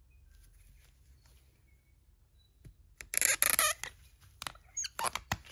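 Metal parts of a scrapped electrical meter squeaking and scraping as they are worked apart. There is a loud squeaky scrape about three seconds in, then a run of sharp clicks with a short squeal. The squeak is cat-like.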